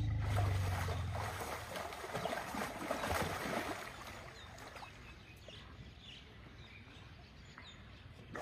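Elephant calf sloshing and splashing as it rolls in a shallow mud pool, busiest in the first few seconds and then quieter. A low steady hum fades out in the first second.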